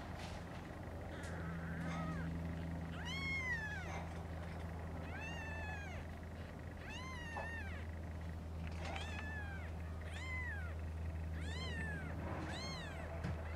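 Newborn kittens mewing: about eight short, high-pitched mews that rise and fall in pitch, spaced a second or two apart, over a steady low hum.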